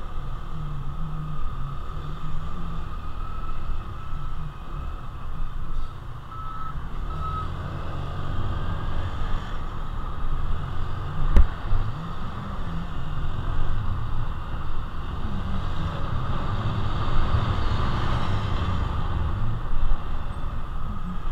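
Honda Navi's small single-cylinder engine running at low road speed in traffic, with wind on the helmet camera's microphone. A few short high beeps sound around six seconds in, and a single sharp knock comes about eleven seconds in.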